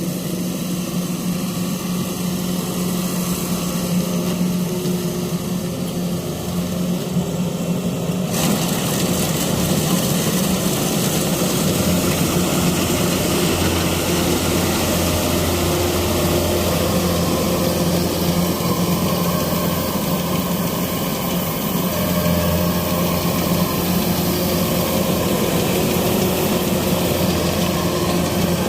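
Kubota DC-93 combine harvester's diesel engine running steadily. About eight seconds in, a louder hissing, rattling machine noise joins it suddenly, and a deeper hum comes and goes in the middle.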